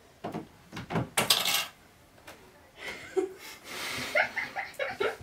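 Bedding and a pillow rustling in short noisy bursts, then a woman breaking into stifled laughter near the end.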